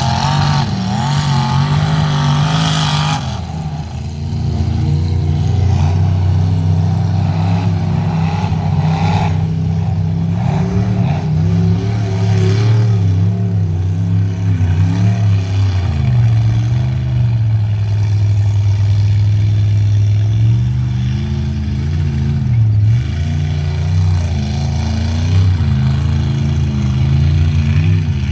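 Mud bog truck engines revving hard as the trucks churn through a mud pit, the pitch rising and falling again and again. The engine note holds steadier for a few seconds past the middle before the revving resumes.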